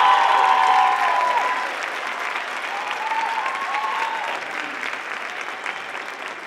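Audience applauding and cheering, with a couple of whoops about three seconds in; the applause slowly fades.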